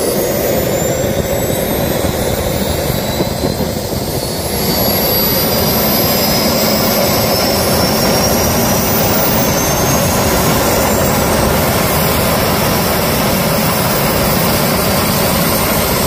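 Small model turbojet engine running, a loud rushing noise with a high turbine whine. About four and a half seconds in it grows louder and the whine climbs steadily in pitch as it spools up.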